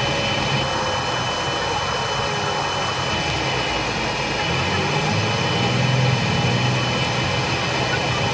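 Bus on the move, heard from inside the cabin: steady engine and drivetrain hum with a thin high whine over it.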